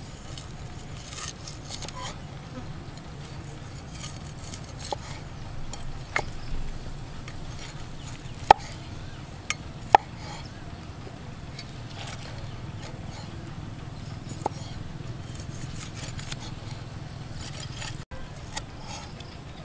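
A steel cleaver chopping cooked meat on a wooden stump chopping board: scattered knocks, the two loudest a second and a half apart about halfway through. A steady low insect-like buzz runs underneath.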